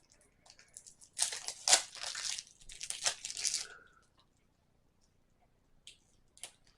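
Packaging of two liquid highlighters torn and crinkled open in a rough burst of about two and a half seconds, starting about a second in, followed by two small clicks near the end.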